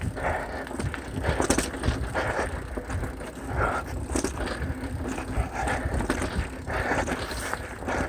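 Mountain bike riding over a rocky trail: tyres crunching over rock and gravel, with frequent knocks and rattles from the bike.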